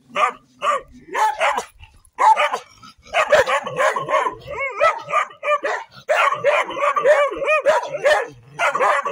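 Two farm dogs barking fiercely at someone approaching, a guarding warning. A few barks, a short pause, then from about three seconds in a rapid, overlapping run of barks, several a second.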